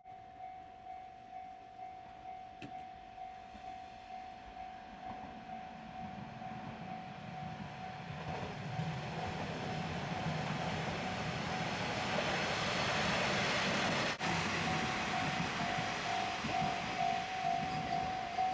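Japanese level-crossing warning bell ringing in a steady, regular beat while a JR Shikoku diesel train approaches and passes. The train's engine rumble and rail noise grow to their loudest a little after the middle.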